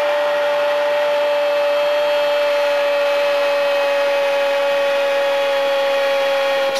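A football commentator's long held goal cry, one unbroken "gooool" on a single note whose pitch sinks very slowly, over stadium crowd noise.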